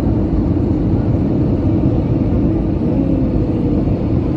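Jet airliner cabin noise in flight: a steady engine and airflow rumble with faint wavering hums.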